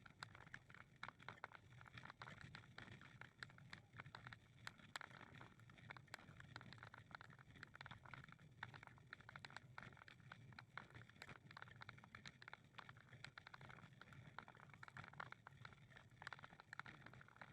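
Faint, irregular footsteps on a walking path, heard as a run of quick soft ticks and scuffs over a low steady outdoor hum.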